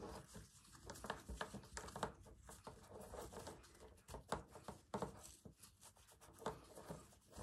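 Faint, irregular rustling and small clicks of fabric scraps and ribbon being handled and threaded onto bunting.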